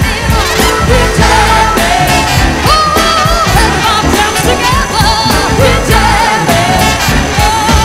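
Background music: a pop song with a singing voice over a steady drum beat.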